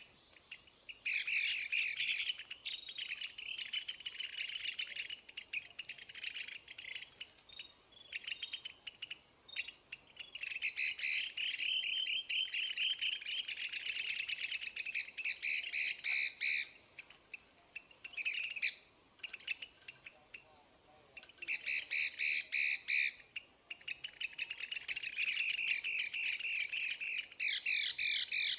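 Chinese hwamei (melodious laughingthrush) singing in long, rapid phrases of varied notes, broken by pauses of a few seconds.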